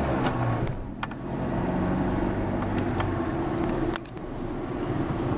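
A Fiat car's engine running and its tyres on the road, heard from inside the cabin while driving, with a few short clicks. The sound drops in level suddenly about four seconds in.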